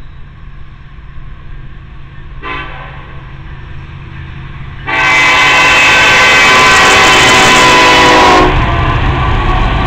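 Horn of Norfolk Southern 1069, an EMD SD70ACe diesel locomotive: a short toot a couple of seconds in, then one long loud blast of about three and a half seconds that cuts off sharply. It is followed by the low rumble of the diesel locomotives passing close by.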